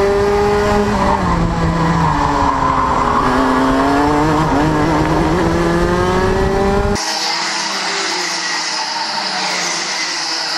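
Racing kart engine heard close up from an onboard camera, with heavy wind rumble; its pitch falls for about three seconds as the kart slows, then climbs steadily as it accelerates again. About seven seconds in the sound cuts abruptly to trackside: several karts' engines running at a distance, quieter and hissier.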